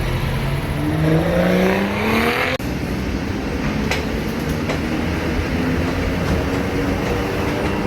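Vehicle engine accelerating with a rising pitch, cut off abruptly about two and a half seconds in, followed by a steady engine drone with a couple of sharp clicks.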